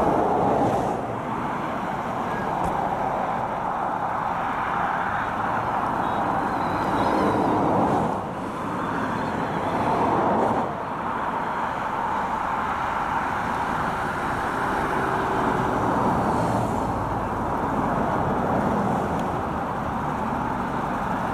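Car on the move: steady engine and road noise that swells and eases a few times.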